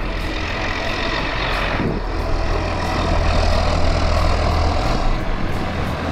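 A John Deere 7810 tractor's six-cylinder diesel engine running steadily, with a brief shift in its note about two seconds in and again near five seconds.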